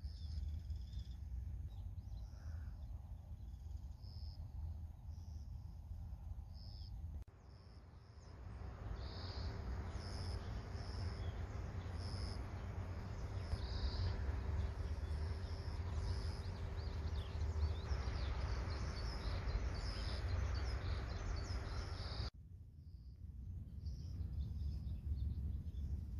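Outdoor nature ambience: a steady low rumble with repeated short, high-pitched chirps of small animals. The sound changes abruptly about seven seconds in and again about twenty-two seconds in; in between it is a louder, even hiss with a faint steady hum under the chirps.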